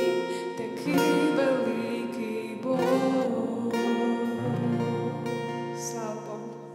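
Acoustic guitar strumming the closing chords of a worship song. The last chord rings out and fades away near the end.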